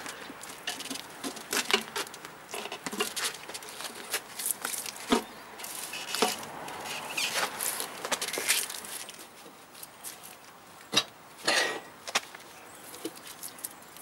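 A nylon-headed tyre bar being levered around a motorcycle wheel rim on a manual tyre changer, forcing a new tyre's bead over the rim: irregular creaks, scrapes and clicks of rubber and bar against the rim, with a couple of longer rasps near the end.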